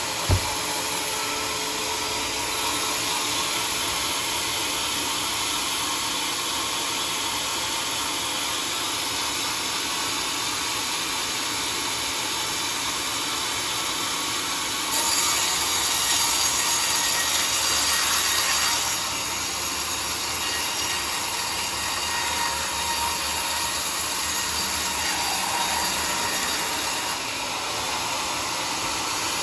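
Sawmill saw running and cutting lengthwise through a wooden log, a steady rushing noise that grows louder and brighter for a few seconds about halfway through. A single sharp knock just after the start.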